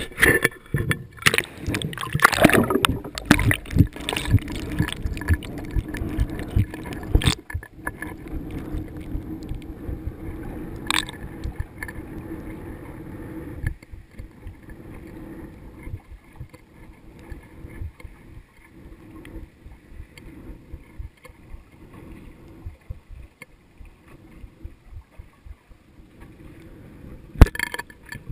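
Action camera in its waterproof housing being lowered into the sea on a hand line, heard from the camera itself: water sloshing and knocking against the housing at the surface for the first several seconds, then a muffled underwater rumble with scattered faint knocks as it sinks. Near the end come a few sharp knocks as the lead jigger nears the seabed.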